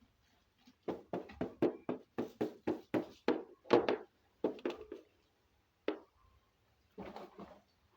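A quick, irregular run of light taps and knocks, with a lone tap after it and a short cluster near the end: hard toy animal figures being handled and set down on a surface.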